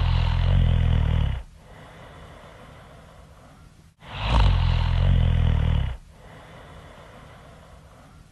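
Loud snoring: a long, low, rough snore that ends about a second and a half in, and another from about four to six seconds, with quieter breathing between them. Each snore follows a brief sudden dropout in the sound.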